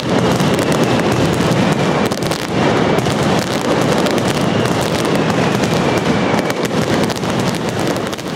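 Mascletà firecrackers and aerial salutes going off in a dense, unbroken barrage of rapid bangs. The noise is so loud that the camera's audio overloads and distorts.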